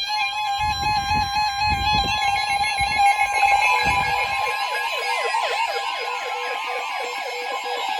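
NOAA Weather Radio warning alarm: a steady single tone near 1 kHz. About two seconds in, it is joined by several weather-radio receivers' own warbling, siren-like alert sounds layered over one another, signalling a Tornado Warning. A few low thuds come in the first few seconds.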